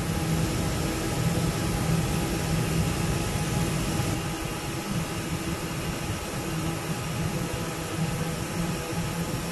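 Steady mechanical hum with a broad hiss from running shop machinery.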